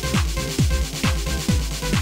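Electronic dance music with a steady kick drum beating about twice a second under sustained synth notes.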